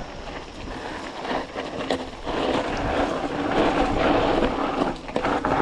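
Mountain bike rolling along a dirt trail: tyre and trail noise that swells about two seconds in and eases near the end.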